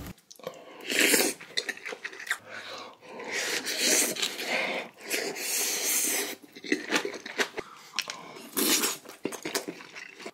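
A man eating very spicy kimchi stew with rice: breathy slurps and puffs of air every second or two, mixed with a few sharp clicks of a spoon on the dishes.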